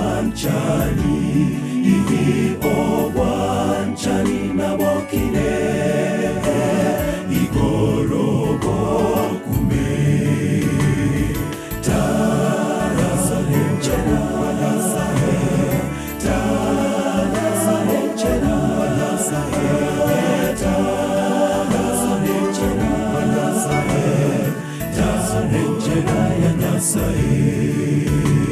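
Men's choir singing a gospel song in full harmony, the voices continuous over a low bass line.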